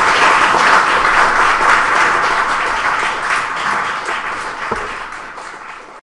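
Audience applauding, loudest at first and slowly dying away toward the end.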